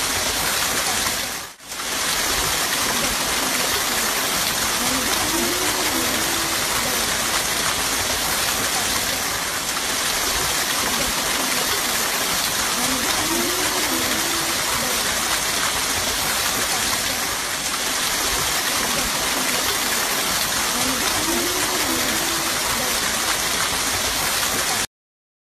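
Spring water rushing and splashing in a loud, steady rush. It drops out briefly about a second and a half in, and cuts off suddenly near the end.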